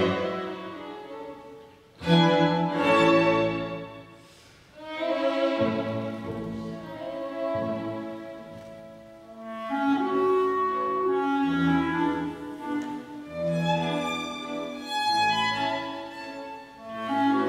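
Clarinet with two violins, viola, cello and double bass playing a Styrian dance (Ländler) live, in phrases that swell and fade, with brief lulls about two and four and a half seconds in.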